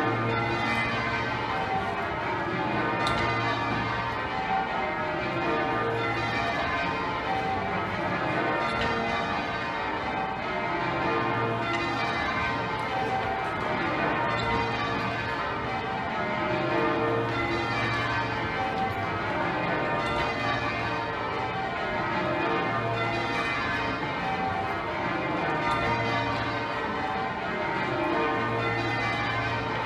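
Exeter Cathedral's heavy ring of bells being rung in changes: a continuous, even stream of overlapping bell strokes, with a deep low note coming back about every five to six seconds.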